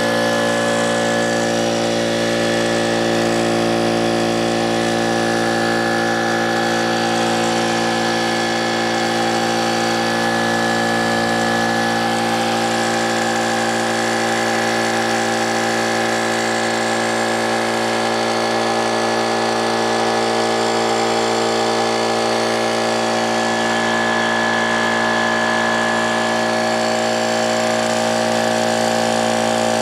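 Brute piston air compressor running steadily, its electric motor and pump filling the emptied tank, with clanking and clattering from the pump.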